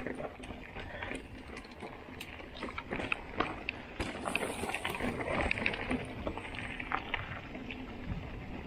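Mountain bike rolling down a rocky dirt singletrack: tyre noise over the ground with frequent clicks, knocks and rattles from the bike as it rides over roots and rocks.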